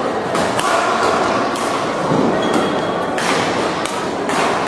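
Badminton rally: rackets striking the shuttlecock in a quick run of sharp hits, roughly one a second, over a steady murmur of spectators in a hall.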